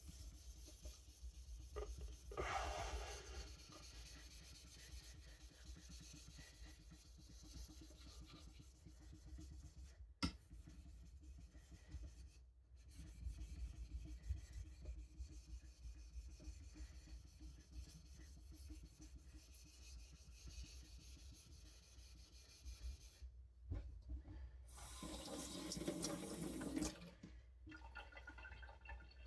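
Knife blade rubbed back and forth on a wet whetstone, a faint gritty scraping through the slurry. It gets louder briefly early on and again for a couple of seconds near the end, with a single sharp click about ten seconds in.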